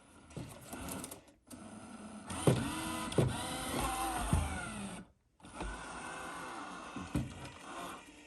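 iRobot Roomba s9+ robot vacuum running, its motors whining and changing pitch, with a few knocks as it works against an area rug threshold it cannot get past. The sound cuts out briefly twice.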